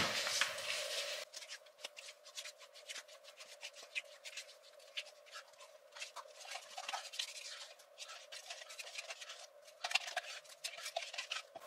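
Thick skyr being scraped out of its tub into a glass bowl: a long run of soft, quick scrapes and small clicks, busier near the end.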